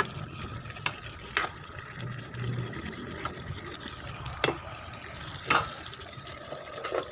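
Chicken and potato curry sizzling in a kadai on a gas burner, with a spatula knocking against the pan about five times as it is stirred.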